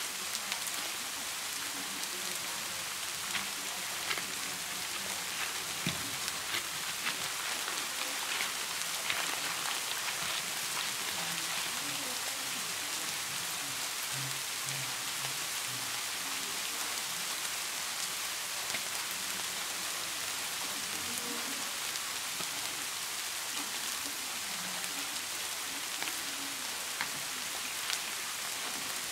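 Scissors snipping and a plastic courier mailer and its wrapping rustling and crinkling as a parcel is cut open and unpacked by hand, as scattered small clicks and crackles over a steady rain-like hiss.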